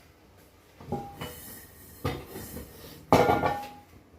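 Kitchen cookware being handled: three clinking knocks about a second apart, each with a brief ring, the last the loudest.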